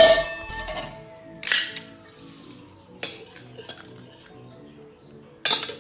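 Stainless steel pots clanking on a glass cooktop and against the steel jaw of a pot lifter as they are set down and gripped. A loud ringing clank at the start, another about a second and a half in, and another near the end.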